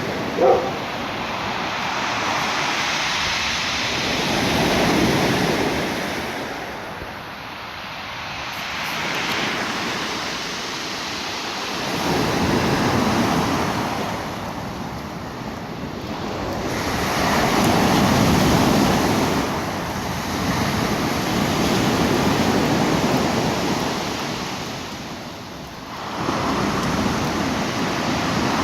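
Black Sea surf breaking on the shore, each wave swelling and falling away about every five to eight seconds, in a rough sea.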